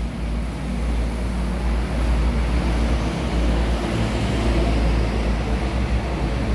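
Steady low rumble of road traffic, growing a little louder about two seconds in as heavier vehicles pass.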